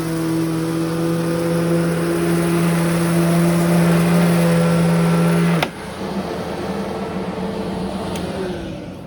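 Upright vacuum cleaner running with a steady hum, then a sharp click a little past halfway, after which the hum stops and the sound is quieter; near the end the motor winds down with falling pitch.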